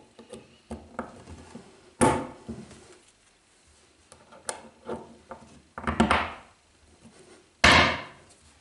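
Steel bearing blocks and ball bearings handled on a wooden workbench: a string of knocks and clacks as the bearings are fitted into their housings and the blocks set down, with four louder knocks, the loudest near the end.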